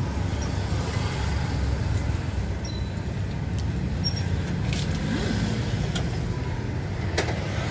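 Steady low rumble of road traffic passing close by, with a few light clicks of a metal spoon and fork against a plate.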